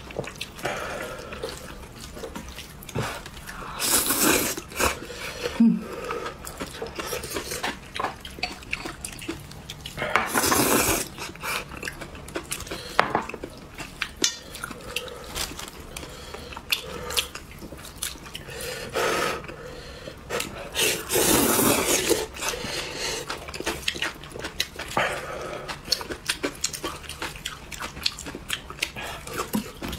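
Close-up wet chewing and slurping of spicy instant noodles, with several long slurps spread through, between many short wet mouth clicks and smacks.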